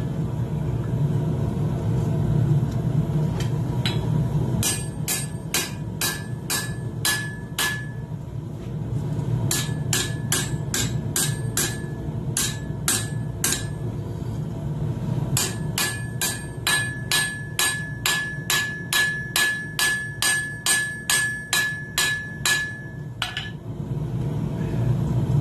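Blacksmith's hand hammer striking hot steel tong stock on an anvil in three runs of blows, about three a second, each blow ringing off the anvil, to straighten and tidy the tong jaws. A steady low rumble runs underneath.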